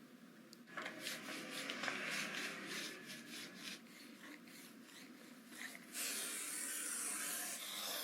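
Handcraft work on a small piece: a run of short scraping strokes, then a steady hiss lasting about two seconds near the end.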